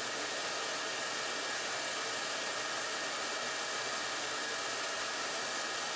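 Steady rushing hiss, even and unchanging, with most of its energy in the upper range.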